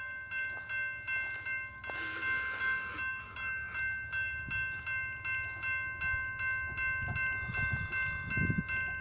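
Railroad crossing warning bell ringing steadily with rapid, evenly repeated strokes while the gates are down. A low rumble builds near the end.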